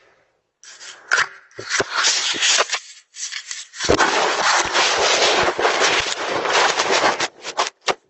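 Handling noise on a Ring doorbell camera's own microphone as a hand grips it and tears it off its mount: broken rubbing and knocks, a brief pause, then about four seconds of continuous rubbing and knocking against the device.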